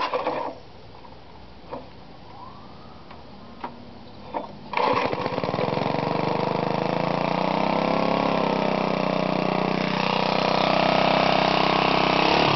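5 hp Briggs & Stratton single-cylinder engine with a homemade FloMastr-style muffler, slow to fire, which the owner puts down to flooding. It catches suddenly about five seconds in, then runs and is revved up and down, louder and higher near the end. The recoil starter, its shaft freshly lubricated with transmission fluid, makes no growl.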